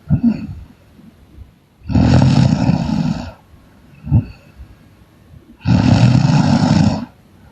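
A sleeping woman snoring loudly: two long, rough snores of about a second and a half each, some four seconds apart, with short fainter breaths between them.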